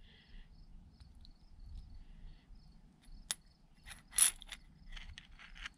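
Small steel parts of a 7.3 Powerstroke HEUI injector clicking and tapping together as the stacked lower fuel section is fitted up into the injector body: a few sharp clicks, the loudest about three and four seconds in, with lighter ticks just after.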